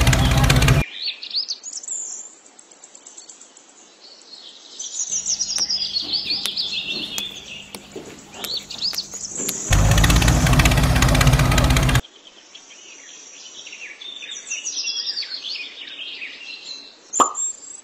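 Small birds chirping and twittering, broken twice by a loud engine-like rumble from the toy tractor, briefly at the start and again for about two seconds past the middle. Near the end come two sharp clicks of tiny clay bricks being set down.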